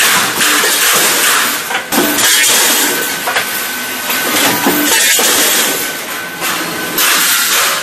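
Plate guillotine shear running: a loud steady hissing din with a faint steady whine, broken by a few knocks.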